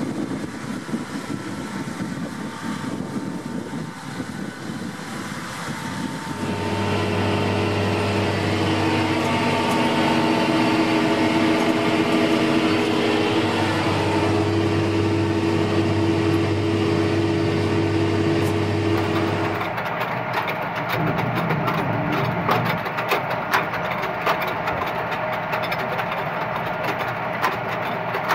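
John Deere tractor engine running as it pulls a cultivator across a field. About six seconds in it gives way to a louder, steadier engine hum heard from inside the tractor cab. Near twenty seconds that in turn changes to a quick clicking and rattling from a tractor-drawn potato planter's mechanism.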